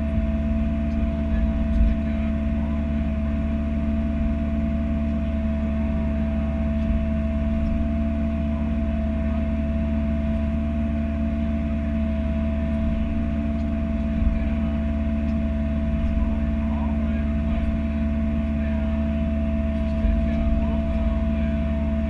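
Bobcat E42 mini-excavator's diesel engine running at a steady speed, with a steady whine over it and a few light knocks about 2, 14 and 20 seconds in.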